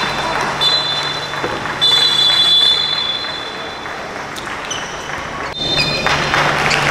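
Referee's whistle blown in several long, shrill blasts over the noise of a futsal hall.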